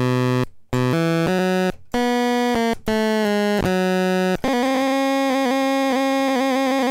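Vintage 'Superior' toy organ-synthesizer played through its line output rather than its built-in speaker, giving a harsh, buzzy, really sawtoothy tone. A few short separate notes, then a held chord from about four and a half seconds in.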